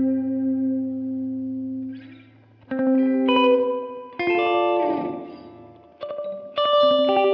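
Clean electric guitar from a Fender Jazzmaster with humbuckers, played through an Ibanez DE-7 delay pedal into a simulated Fender Princeton Reverb amp. A held note fades out, then new notes and chords are struck about four times.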